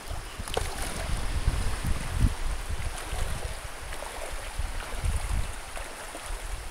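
Wind buffeting the microphone: a low, uneven rumble that swells and fades in gusts, over a light hiss, with a few faint clicks.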